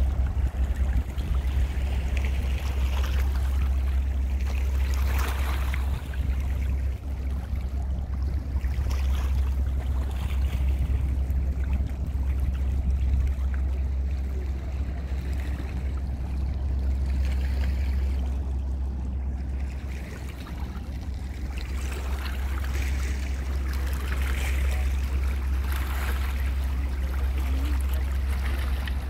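River ambience beside the Rhine: a steady low rumble, with water washing and lapping against a stone riprap bank.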